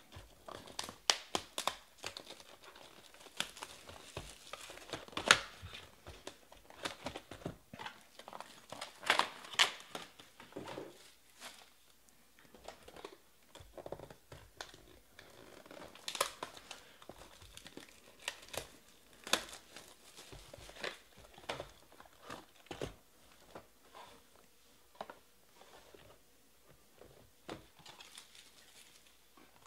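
Plastic wrapping crinkling and tearing as a sealed box of Topps Finest baseball cards is opened by hand and its packs are handled: irregular sharp crackles and rustles, loudest about five and ten seconds in.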